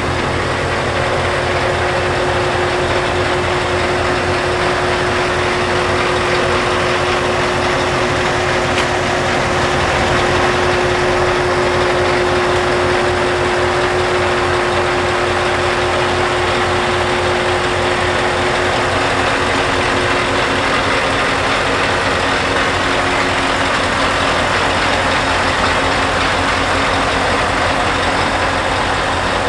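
Scania R730's V8 diesel engine idling steadily.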